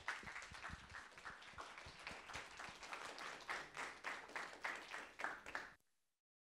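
Audience applauding: a dense patter of many hands clapping, which cuts off abruptly about six seconds in.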